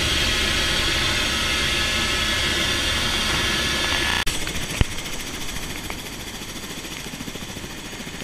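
Helicopter running on the ground with its rotor turning: first a loud steady engine and rotor noise heard inside the cabin, then, after a sudden cut about four seconds in, the rotor heard from outside, quieter, with a fast even pulsing of the blades. A single sharp click comes just after the cut.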